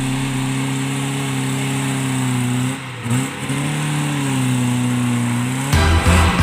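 Off-road vehicle's engine running at steady high revs; its pitch drops briefly about three seconds in, then climbs and settles again. Near the end it cuts off abruptly and music with a heavy beat takes over.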